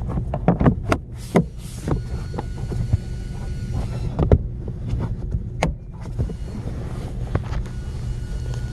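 Plastic cover of the blower motor housing being fitted and snapped into place: a run of short clicks and knocks, most of them in the first six seconds, over a steady low rumble.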